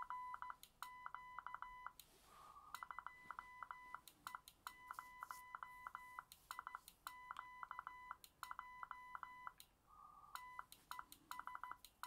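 Xiegu X6100 transceiver's CW sidetone sending a stored Morse code message: faint beeps at one steady pitch, keyed as dits and dahs in groups with short gaps between them. A brief soft hiss comes twice between groups.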